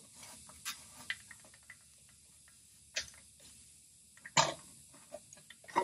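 A few faint, scattered clicks and small knocks of metal parts being handled as the nut and serrated washer on an LED license plate light's stud are snugged down behind the plate.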